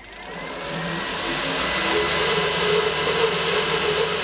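Bench drill press motor running up to speed over about two seconds, then running steadily as a 3.5 mm bit is fed down into two clamped brass plates.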